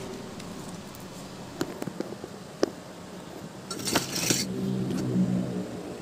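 Light handling noises as wires and tools are moved about: a few small clicks and a brief rustling scrape about four seconds in.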